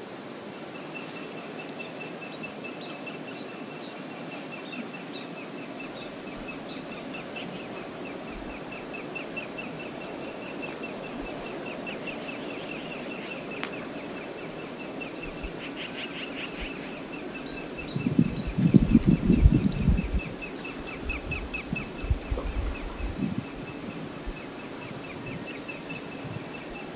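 Steady rush of river water, with a thin, high, rapidly pulsing trill from a bird running through most of it. About two-thirds of the way through comes a couple of seconds of loud low rumbling, the loudest thing here, followed by a few weaker low bursts.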